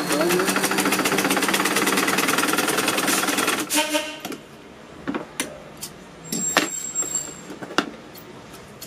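Sewing machine stitching at speed, a fast, even rattle that stops about three and a half seconds in; after it come scattered clicks and taps.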